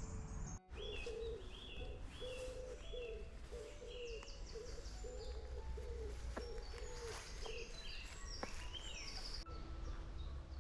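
Several birds singing over a steady low outdoor rumble: short high chirps repeated many times, and a lower call repeated about a dozen times in the first half. A few faint clicks are also heard.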